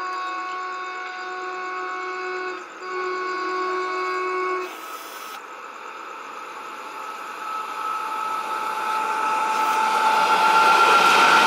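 Electric locomotive air horns sounding in two long multi-tone blasts, the first broken off briefly. Then an approaching train grows steadily louder, a steady high tone rising over the rail noise.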